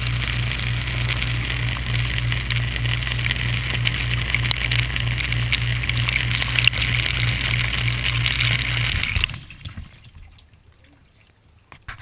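Dishwasher wash cycle heard from inside the tub through a waterproof camera case: water spraying and splashing from the spray arm over a steady low pump-motor hum. Both stop suddenly about nine seconds in.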